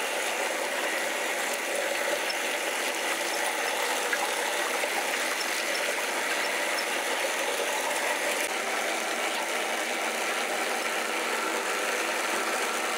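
Electric wet grinder running steadily, its stone roller turning in the steel drum and grinding tomato chutney to a paste.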